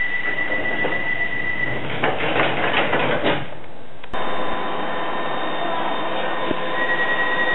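London Underground train at a busy station platform: a steady high squeal for about two seconds, then a rattling clatter. After a sudden cut, a standing train's steady hum, with the high tone returning near the end.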